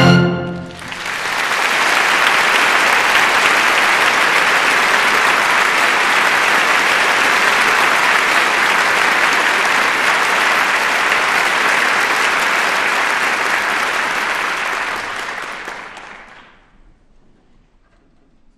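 Theatre audience applauding a ballet number, rising just as the orchestra's last chord dies, holding steady, then fading away near the end.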